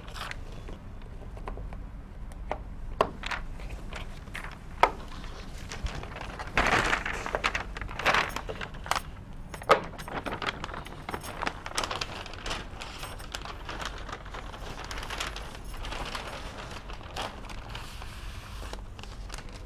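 A large sheet of paper being pulled down from a whiteboard and handled: rustling and crinkling, with scattered sharp clicks and snaps, busiest in the middle.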